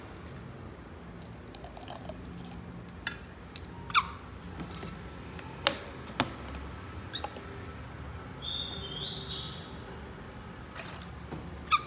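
Scattered small clicks and taps. Two brief high squeaks that fall in pitch, one about four seconds in and one near the end. A short hissing rustle a little past two-thirds of the way through.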